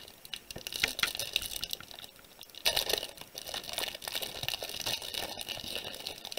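Foil booster-pack wrapper crinkling and tearing as it is opened by hand, with denser crackling from about three seconds in.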